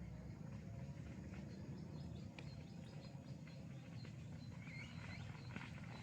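Small birds chirping in bushes: many short, high chirps in quick succession, faint, over a steady low rumble.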